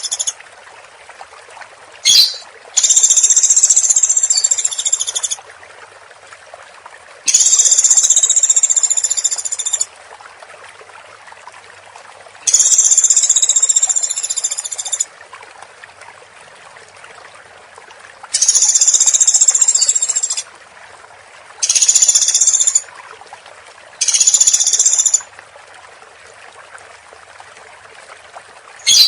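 Woodpecker (pelatuk) calling: high-pitched bursts of about one to two and a half seconds, repeated every few seconds, with shorter bursts near the middle and end.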